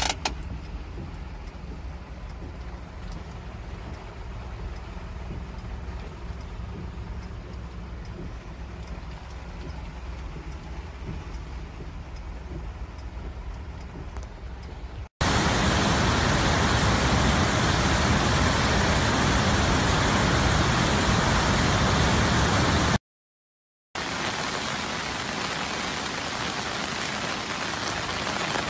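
Steady rain noise with a low rumble, heard from inside a car. About halfway in it switches abruptly to a much louder, even hiss of heavy rain. After a one-second dropout a steadier, moderate rain hiss follows.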